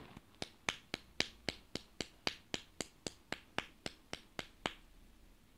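Nail polish bottle being shaken: a steady run of sharp clicks, about four a second, that stops near the end.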